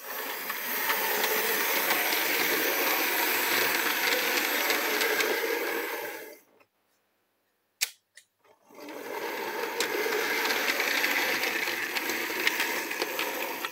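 Fleischmann model of the works locomotive 'Anna' running on the layout: its small electric motor whirs steadily with light ticking from the wheels on the track. It stops about six and a half seconds in, a single sharp click follows, and it starts running again about two seconds later.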